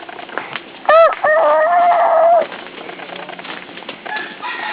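Rooster crowing once: a short arched note, then a long held call of about a second and a half.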